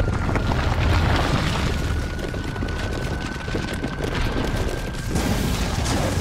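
Film sound effects of a deep, continuous rumble with crackles of breaking rock as a glowing energy dome forms. A thin high tone is held throughout, creeping slowly up in pitch.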